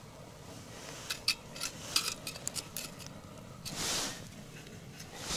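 Light, irregular clicks and taps from handling a small winter ice-fishing rod and its spool reel, with a brief rustle about four seconds in.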